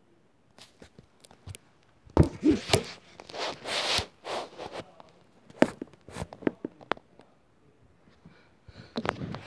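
Handling noise from a phone camera being moved and set up: rustling and scraping against the microphone from about two seconds in, then a string of separate knocks and taps.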